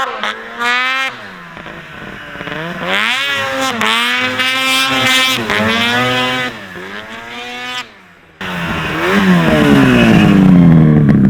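Rebuilt 800 H.O. two-stroke twin engine of a 2004 Ski-Doo Rev snowmobile, revved up and down again and again. About 8 s in the sound breaks off briefly, then the engine revs up louder and its pitch sweeps up and down as the sled moves off under power.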